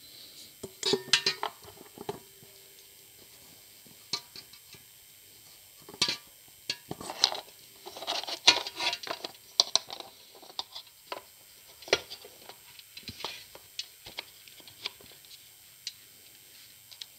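Plastic and metal parts of a thermal kitchen mixer clicking, knocking and rattling as they are handled and fitted together by hand. The irregular clicks come in clusters about a second in, through the middle, and again later, then thin out.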